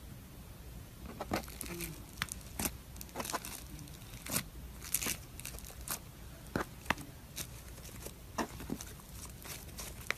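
Crunchy slime being pressed and worked by hand, giving irregular sharp crackles and pops, a few every second.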